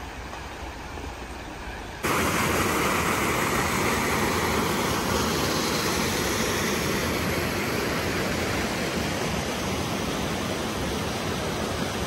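Mountain river water rushing over rocks: a moderate steady flow that about 2 s in switches abruptly to a loud, close rush of white water cascading down a rock face.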